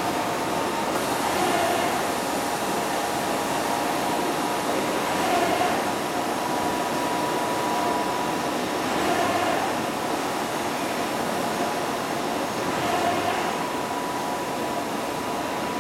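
Inca flatbed inkjet printer running: a steady machine hum with a thin high whine, swelling about every four seconds.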